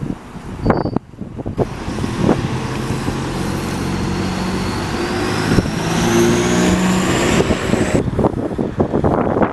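Optare Solo SR midibus pulling away from a stop and accelerating past, its engine getting louder, with a thin whine rising in pitch as it gathers speed. The sound cuts off abruptly about eight seconds in.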